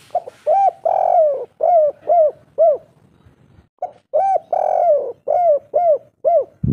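Spotted dove cooing its kuk-3 song: two phrases of six rounded coos each, the third coo of each phrase drawn out longer. A brief low thump comes at the very end.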